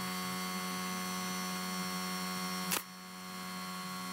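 A steady electrical hum, broken about two and a half seconds in by one sharp snap of a brad nailer driving a small brad nail into the pine frame.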